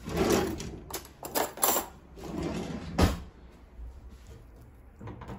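Kitchen handling noises while a fork is fetched: several short rustles and knocks, with a sharp clack about three seconds in.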